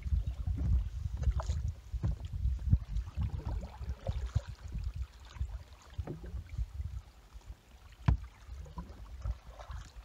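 A canoe being paddled on calm water: paddle strokes in the water with low rumbling on the microphone, and one sharp knock about eight seconds in, like a paddle striking the canoe's side.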